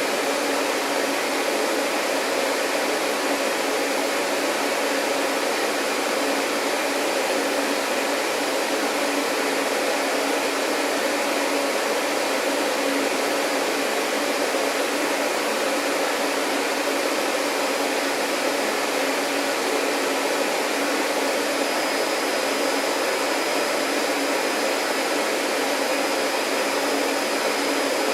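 Vacuum cleaner running steadily: an even rushing hiss of air with a low hum under it, and a faint high whine that comes in about three-quarters of the way through.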